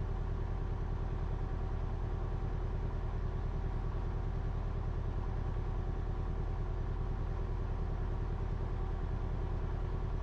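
Cessna 172RG's four-cylinder Lycoming engine idling steadily with an even, fine pulsing, heard from inside the cockpit.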